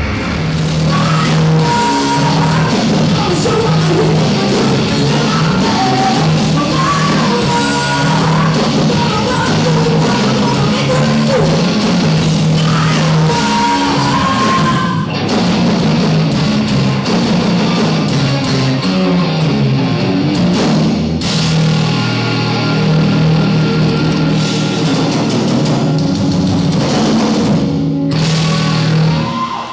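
Live rock band playing loud, distorted rock: electric guitars, bass and drum kit with a singer, in a muddy, poor-quality recording.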